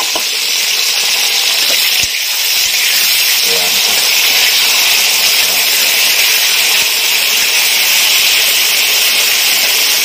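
Large green chafer beetles sizzling in hot oil in a wok, just after being tipped in: a loud, steady frying hiss, with a single knock about two seconds in.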